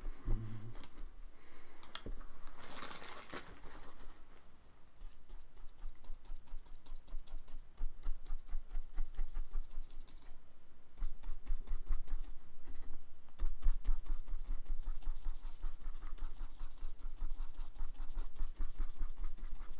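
Small paintbrush scratching and tapping on paper over a cardboard board in quick, repeated strokes and dabs, building up ink wash; the strokes grow busier and louder about halfway through.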